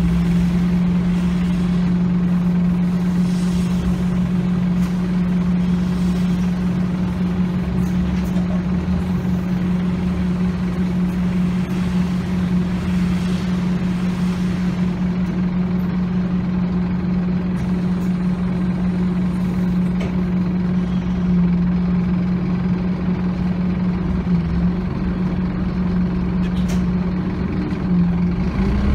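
Scania OmniCity double-decker bus heard from inside the passenger cabin while under way: a steady diesel engine drone held at one pitch over road noise, with a few faint knocks, and a brief wobble in pitch near the end.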